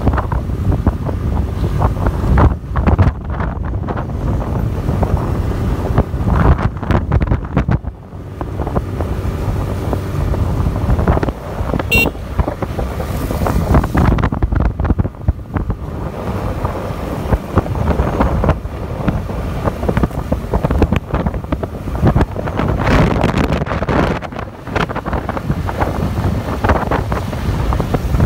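Stormy typhoon wind buffeting the microphone from a moving vehicle: a loud, deep, rumbling rush that rises and falls in uneven gusts.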